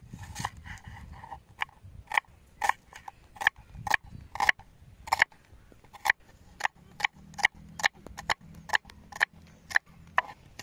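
Kitchen knife slicing a red onion on a wooden chopping board: a run of sharp chops, roughly one to two a second and unevenly spaced, each one the blade going through the onion and knocking on the board.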